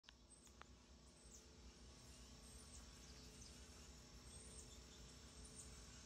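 Faint outdoor ambience: a steady high-pitched insect drone, with a few short, faint bird chirps.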